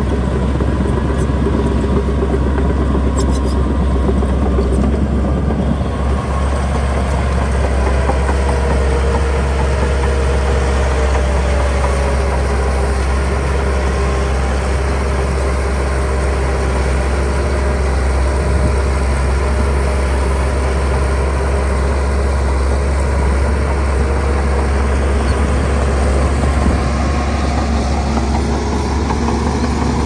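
Heavy diesel earthmoving machinery running steadily: a deep, continuous engine drone.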